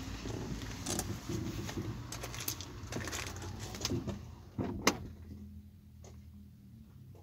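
Rustling and small clicks of handling inside a parked car over a low hum, with one sharp click just before five seconds in; after it, only the steady low hum remains.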